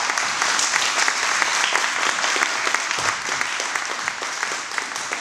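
Spectators applauding, a dense spatter of hand claps that slowly dies away.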